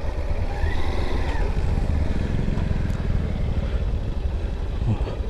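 Motorcycle engine running with a steady low rumble.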